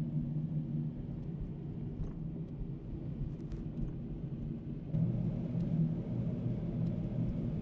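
Car driving on a wet road, heard from inside the cabin: a steady low engine and road drone with tyre noise, getting louder about five seconds in.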